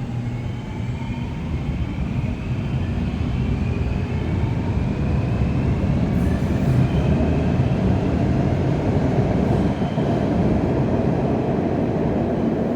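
Electric metro train pulling away, its motor whine rising steadily in pitch over the rumble of the wheels as it gathers speed.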